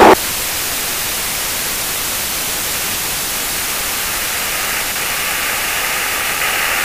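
Steady hiss of static on the aircraft's radio and intercom audio feed, with no engine tone coming through. The hiss grows a little brighter and louder about five seconds in.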